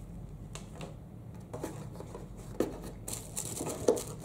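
Unboxing handling noise in a cardboard box: scattered light taps and knocks as hands set down the camera strap and reach into the box, then a high crinkling rustle of plastic bubble wrap from about three seconds in.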